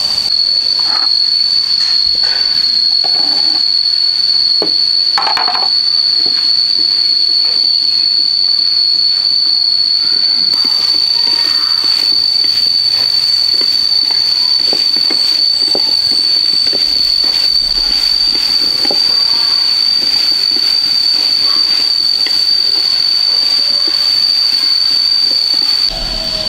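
A steady, shrill high-pitched drone holds at one pitch throughout, with scattered light clicks and knocks beneath it.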